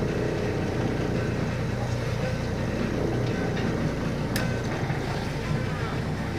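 Small fishing boat's engine running steadily under a wash of wind and sea noise, with one sharp knock about four seconds in.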